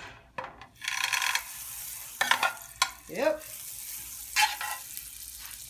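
A pat of butter sizzling as it melts and foams in a hot nonstick frying pan while a knife pushes it around. The sizzle sets in about a second in and holds steady, with a few short scrapes of the knife on the pan.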